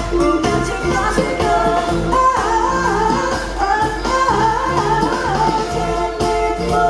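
Live band playing: a woman singing over electric guitar, drums, bass and keyboard.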